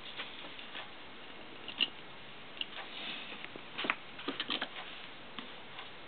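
Quick, light dabbing taps of a paint sponge on the sign board for about the first second, then scattered small clicks and knocks, the loudest cluster a little past the middle.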